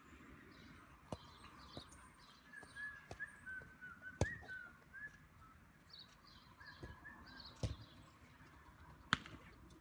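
Quiet outdoor ambience with birds chirping, broken by a few sharp knocks of a football being kicked, the loudest about four seconds in and another near the end.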